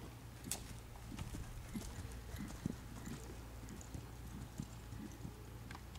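Hoofbeats of a ridden horse on the sand footing of an arena: soft, irregular low thuds, a few per second, with a few sharper clicks among them.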